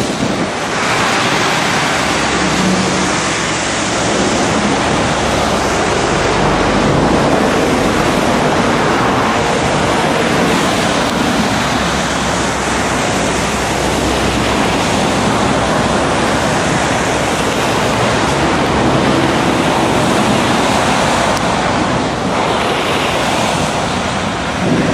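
Loud, steady rushing noise of wind buffeting the microphone, mixed with vehicles passing on a hail-slushed highway.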